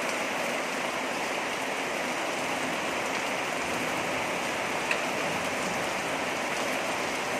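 Heavy rain falling steadily, an even hiss, with one light click about five seconds in.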